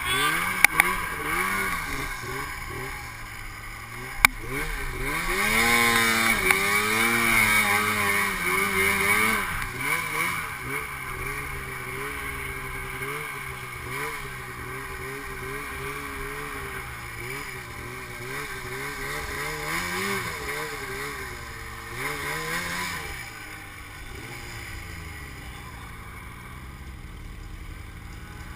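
Snowmobile engine running under changing throttle. It revs up steeply about six seconds in, wavers up and down as the sled moves off, rises again near the end, then drops back lower and quieter. A few sharp clicks sound in the first seconds.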